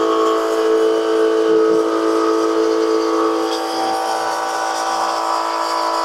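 Small portable transfer pump running with a steady whine, pumping water out of an electric water heater tank through a hose to empty it.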